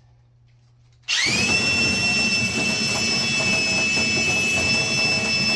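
Electric drill spinning a dryer vent cleaning brush on flexible rods inside the duct. It starts about a second in with a rising whine that settles into a steady high-pitched run over a rough scraping rumble.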